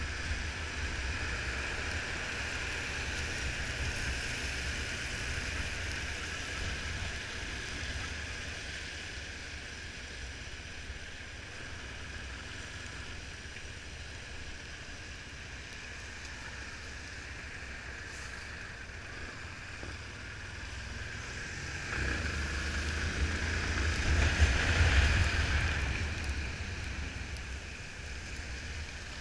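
Wind rush and wet-road tyre noise over the Yamaha Fazer 250's single-cylinder engine while the motorcycle is ridden in rain. The noise swells louder about 22 seconds in, then eases off near the end as the bike slows in traffic.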